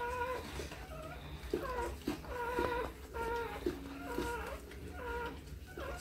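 Newborn XL American Bully puppy crying in a string of short, high squeals, one or two a second.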